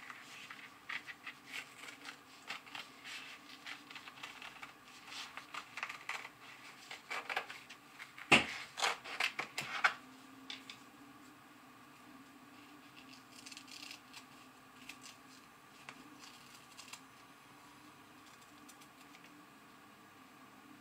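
Scissors snipping through felt in quick short cuts over the first ten seconds, with one sharper, louder click about eight seconds in. After that only a few faint snips and handling sounds.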